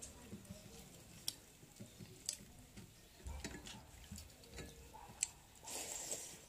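Quiet sounds of eating rice by hand: scattered small clicks of fingers working the rice on the plate and of lips and mouth, with a short moist rustle near the end as a handful of rice goes into the mouth.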